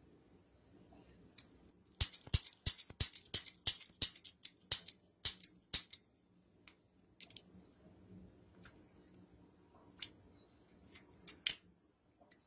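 Small revolver's action being worked by hand, freshly restored from rust: a quick run of about a dozen sharp metallic clicks from hammer and cylinder over some four seconds, then a few scattered clicks near the end.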